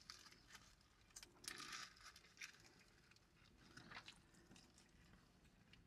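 Faint eating sounds over near silence: chewing and the crinkle of burger paper wrappers, in a few short bursts.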